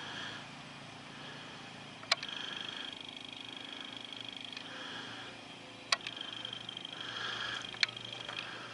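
A steady high-pitched trilling chorus of wild animal calls from a wet streamside, with three sharp clicks about two, six and eight seconds in.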